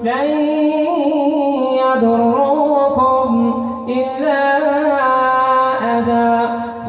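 An imam's solo voice reciting the Quran in melodic tajweed chant, holding long, slowly bending notes, with a new phrase starting about four seconds in.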